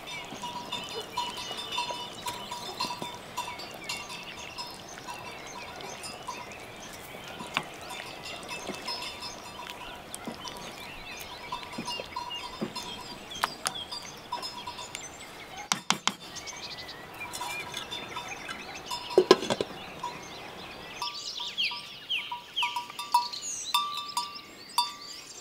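A wooden spoon stirring stew in an aluminium pot, knocking against the pot a few times, over an outdoor background of birds chirping. After a cut near the end, the background changes to quieter chirping.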